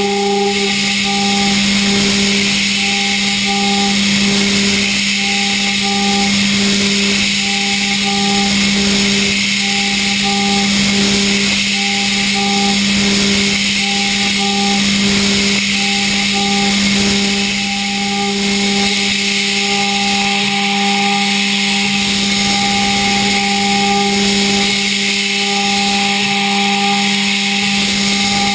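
Okuma GENOS M560V vertical machining center finish-milling hardened D2 tool steel at 62 Rc: a steady spindle and cutting tone, with a higher tone that cuts in and out about once a second, over a steady hiss.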